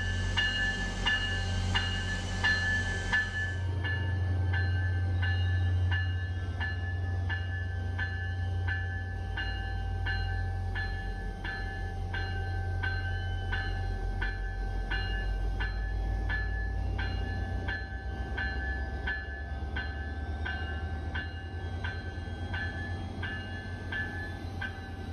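Bell of an MBTA F40PH-2C diesel locomotive ringing steadily, about one and a half strikes a second, over the low rumble of its diesel engine as the train creeps slowly onto the layover track.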